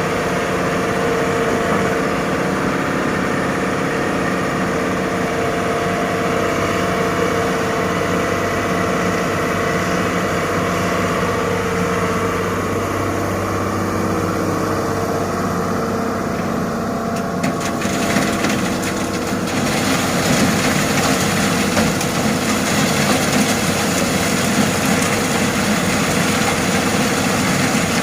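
Heavy diesel machinery engine running steadily. About two-thirds of the way through the sound turns harsher and noisier and stays that way.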